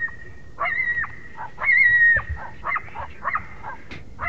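Coyote vocalizations: two high, slightly wavering howl notes, then a quick run of short yips.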